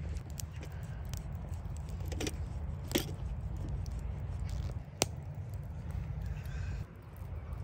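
Wood campfire crackling, with scattered sharp pops (the loudest about three and five seconds in), over a low steady rumble.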